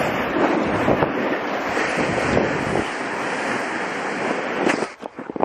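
Sled sliding fast over snow, with wind rushing over the microphone: a loud, steady hiss that dies away near the end as the sled slows to a stop.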